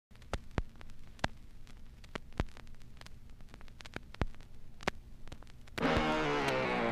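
Low steady hum and faint hiss with scattered sharp clicks and crackles. Loud music cuts in abruptly near the end.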